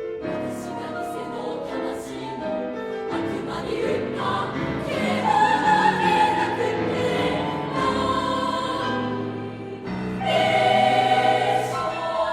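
A three-part girls' choir singing with piano accompaniment, the chords changing throughout. It grows louder about five seconds in, dips briefly near ten seconds, then comes back loud on a sustained chord.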